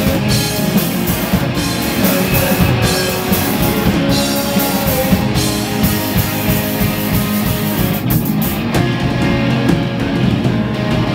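Live rock band playing loud, with distorted electric guitars and a drum kit. Near the end the cymbals drop away, leaving the guitars and lower drums.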